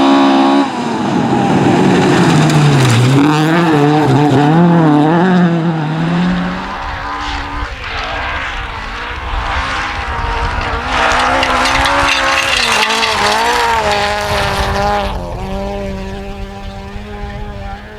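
Rally car engine at full throttle on a forest stage. In the first few seconds the pitch rises and drops quickly through gear changes and lifts, then it climbs in longer pulls, with tyre and road noise underneath. It fades away near the end.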